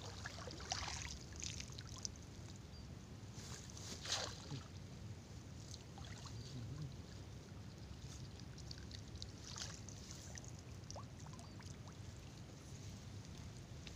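A few splashes and rustles as a collapsible umbrella fish trap on a rope drops into shallow swamp water and is pulled about, the loudest about four seconds in, over a steady low rumble.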